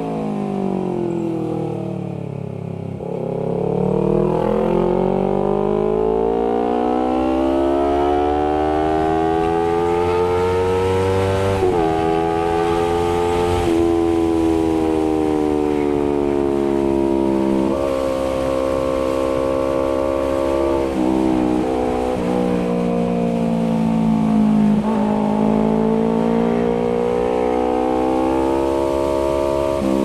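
Honda CBR250RR's parallel-twin engine through an aftermarket R9 GP SS exhaust, ridden under way: the revs fall for the first few seconds, then climb steadily for about eight seconds. Several sudden drops in pitch follow, as gears are changed, with the revs rising and falling again through the rest.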